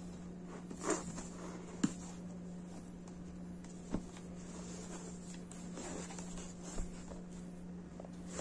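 Shrink-wrapped cardboard box being handled and turned: the plastic film crinkles and rustles, with a few light knocks of the box against the table.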